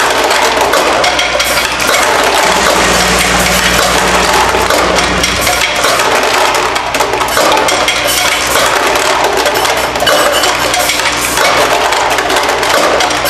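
Brass fittings clattering continuously in the vibratory bowl feeder of a Delta LCM22 piece-counting machine: a dense, unbroken rattle of small metal parts knocking together, over a steady low hum from the feeder drive.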